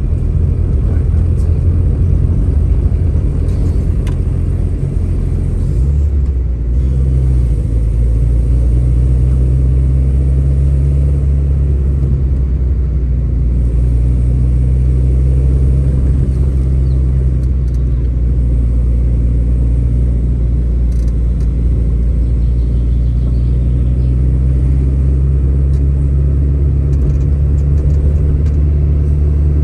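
Car engine and tyre noise heard from inside the moving car's cabin, a steady low drone. The engine note changes about six seconds in, then holds steady.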